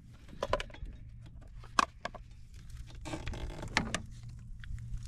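Scattered knocks and clacks of a folding wooden fish-measuring board being opened and laid across a kayak, with the sharpest knocks about a second and three quarters and near four seconds in, over a low steady hum.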